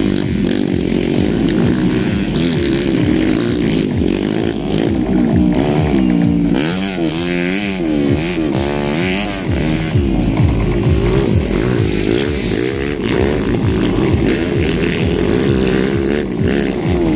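Several motocross dirt bike engines revving on a dirt track, their pitch rising and falling as riders open the throttle and shift through the corners, with the strongest swings in pitch around the middle.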